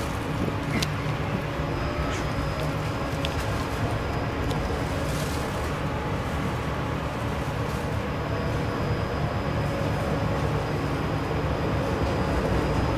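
Cabin sound of a TVZ 71-931 Vityaz-M low-floor tram running along the line: a steady low rumble of wheels on rail and running gear. A thin, high, steady whine comes and goes over it, and there are a few light clicks.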